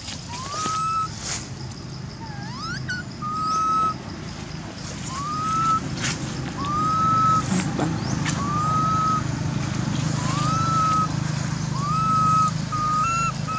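Infant macaque crying with a string of short rising calls, about one a second, its distress cries for its mother. A low steady rumble runs underneath, louder in the second half.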